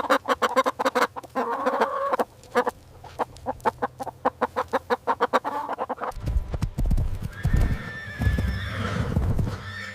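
Chickens clucking in quick, repeated calls. About six seconds in, horse sounds take over: a low rumble, then a whinny near the end.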